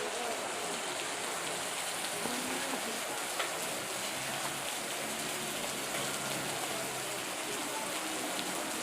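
Steady hiss of water from floodwater running over and along a road after heavy rain, with a faint low hum underneath.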